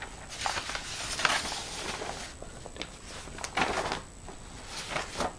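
Irregular rustling and light handling knocks, a few short bursts spread through, as papers and the camera are handled.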